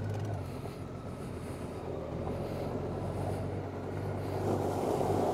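Honda Gold Wing's flat-six engine running at low speed with a steady low hum as the motorcycle rolls slowly over a gravel road, with a noise of tyres on gravel that grows a little louder near the end.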